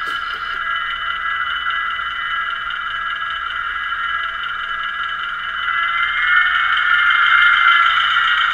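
A model locomotive's sound decoder playing a locomotive engine sound through its small built-in loudspeaker, thin and buzzy with no deep bass. About six seconds in it gets louder and rises in pitch, as the engine revs up.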